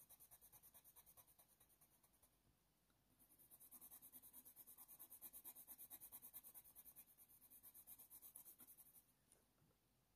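Faint, quick back-and-forth strokes of a Faber-Castell Polychromos ivory colour pencil on hot-press watercolour paper, pausing briefly after about two seconds and then running on in an even rhythm.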